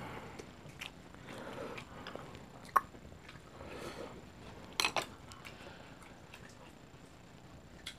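Quiet eating at a table: soft chewing and mouth sounds, with a few sharp clicks of chopsticks and a spoon against dishes. The clicks come once a little before three seconds in and twice in quick succession about five seconds in.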